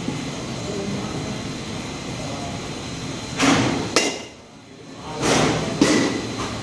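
Batting-cage pitching machine firing twice, each whoosh followed about half a second later by a sharp crack of a metal bat hitting the ball.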